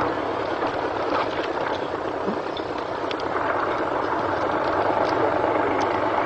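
Heavy towing vehicle's engine running steadily under load while it drags a sunken WWII StuG III assault gun hull out of swamp mud. A low hum grows stronger about halfway through.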